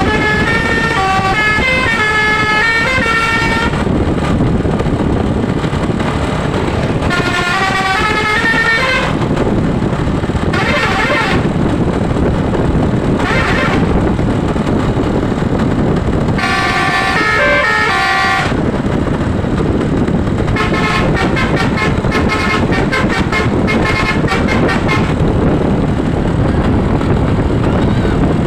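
Telolet basuri musical air horn on a tour bus, playing quick stepping multi-note tunes in repeated bursts, with a run of fast staccato notes in the second half. A steady loud rumble runs underneath.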